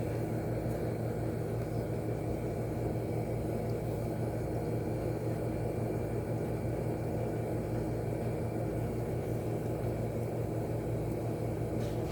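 Steady low mechanical hum and drone with a few fixed low tones, unchanging in level.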